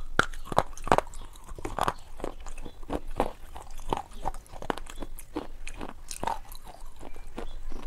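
Close-miked chewing and biting: wet mouth clicks and lip smacks come a few times a second as a mouthful of soft food is eaten.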